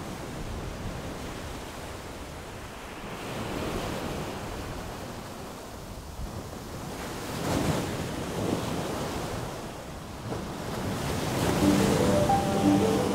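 Sea surf washing in and out in several slow surges, with wind buffeting the microphone. Music comes in near the end.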